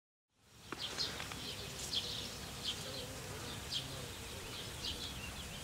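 Outdoor ambience fading in after a moment of silence: small birds giving short, high chirps every half second or so over a faint insect buzz.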